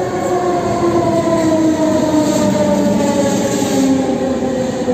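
ÖBB Class 4020 electric multiple unit pulling into an underground platform, its motors whining in a slowly falling pitch as it slows, over the rumble of wheels on rail.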